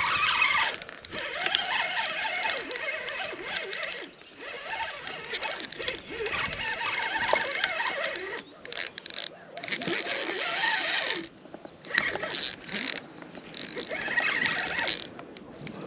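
Spinning reel worked against a big fish on the line: gears cranking and the drag ratcheting in stretches, with short breaks between them.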